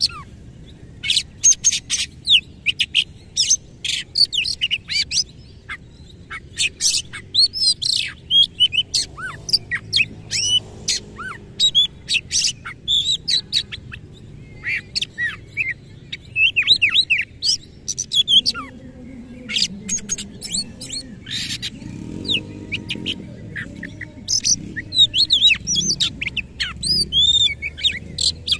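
Oriental magpie-robin (kacer) singing hard: fast, harsh runs of sharp chips, clicks and quick up-and-down whistled notes, full of mimicked phrases (isian), in bursts separated by short pauses.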